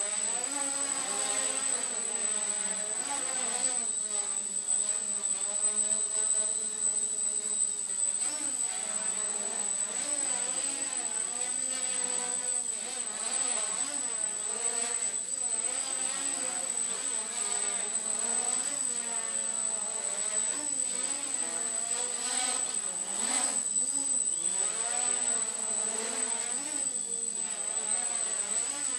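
Micro quadcopter's four Turnigy 1811 2900kv brushless motors spinning 5030 props in a hover, a buzzing whine whose pitch wavers up and down continually as the throttle is corrected. A thin steady high-pitched tone runs alongside.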